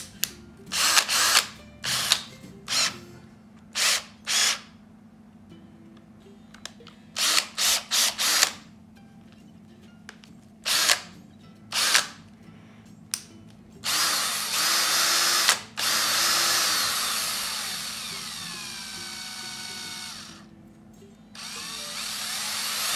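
Parkside PSBSA 20-Li B2 cordless hammer drill: first a series of short ratcheting bursts as the keyless chuck is twisted by hand. From about two-thirds in, the motor runs in three short spells; the longest winds down with a falling whine.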